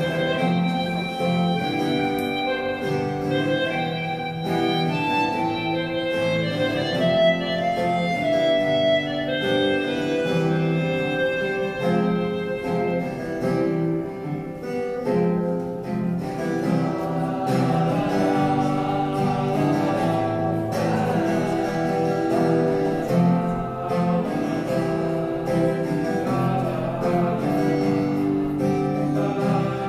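Acoustic guitar strumming chords under a harmonica playing the melody, with a male voice singing over the guitar from about halfway through.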